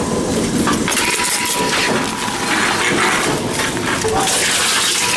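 Envipco reverse vending machines taking in containers: bottles and cans clattering and clinking over the machines' mechanical noise, with a faint steady tone for about a second near the start.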